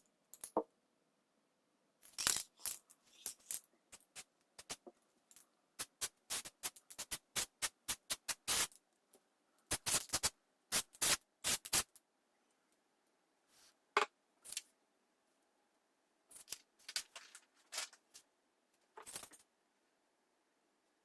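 Irregular sharp clicks and clatters, like small hard objects tapping or knocking together, in quick clusters with short quiet gaps between.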